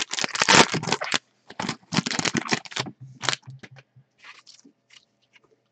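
Plastic-foil wrapper of a Panini Diamond Kings baseball card pack being torn open and crinkled, a dense rapid crackle for about three seconds. It then thins to soft scattered rustles and clicks as the cards are handled, fading out about five seconds in.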